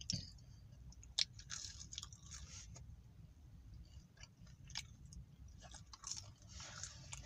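Close-up chewing of crispy KFC fried chicken: soft, crackly crunches with a few sharper mouth clicks.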